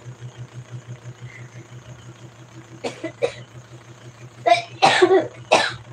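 A woman coughing: two short coughs about three seconds in, then three louder coughs near the end, over a steady low pulsing hum.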